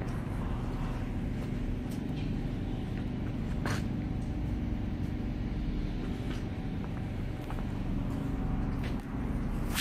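Steady low mechanical hum of machinery running, with a few light clicks.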